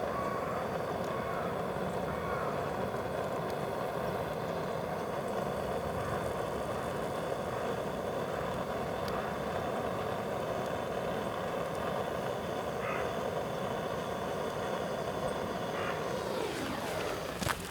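An engine running steadily, then falling in pitch and cutting out near the end.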